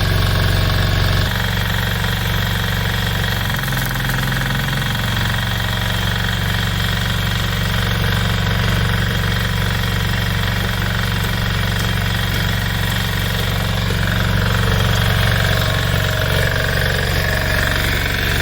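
An engine running steadily, with a sudden change in its note about a second in.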